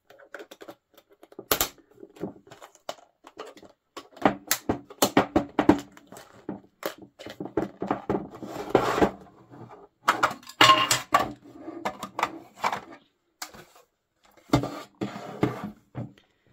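Hard plastic toy pieces clicking, tapping and rattling as they are handled and pushed into place, in an irregular run of sharp knocks.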